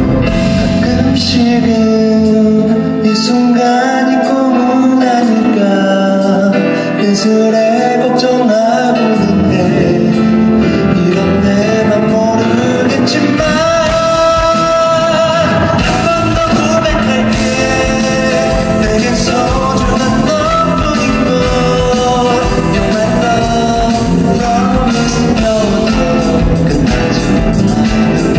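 Live pop song: a male singer with a band, guitar audible. The low bass drops away about four seconds in and comes back in around the middle.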